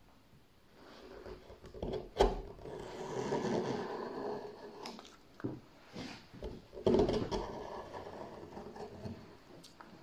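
Hand-forged swan neck gouge pushed by hand through a wooden board, scooping out shavings with a rough scraping cut. There are two long cuts, the first starting about two seconds in and the second near seven seconds, with a sharp knock at the start of the first and light clicks in between.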